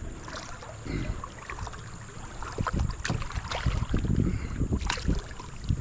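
Wind buffeting the microphone on a kayak on a moving river, with a few short sharp knocks in the second half.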